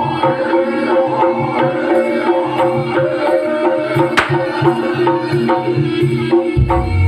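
Live jaranan ensemble music: hand drums struck in a steady, quick pattern over ringing gamelan-style tuned percussion. A single sharp crack cuts through about four seconds in, and a deep low tone swells back in near the end.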